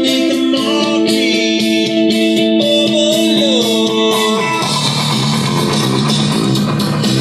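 Guitar-led music playing from a portable wireless party speaker. Held notes with one bending note about three seconds in, then a fuller section with more bass from about four and a half seconds.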